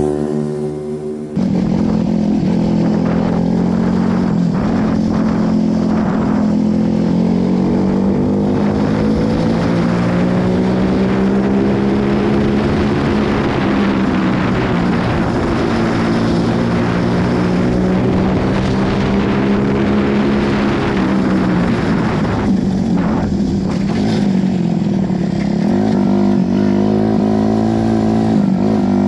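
Homemade go-kart's engine running as it is driven, heard from the driver's seat, its pitch rising and falling slowly as it speeds up and eases off. The sound changes abruptly about a second in.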